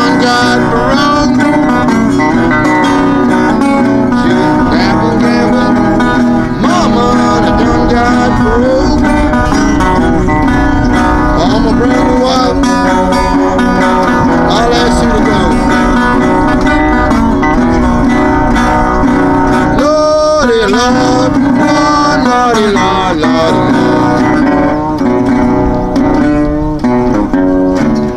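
Resonator guitar playing a blues tune, with bending and sliding notes.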